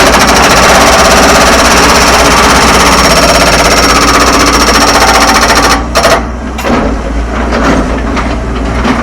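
A rock breaker hammering rock in rapid, continuous, very loud blows, breaking up rock in the pool excavation. It stops abruptly about six seconds in, leaving quieter, irregular knocks.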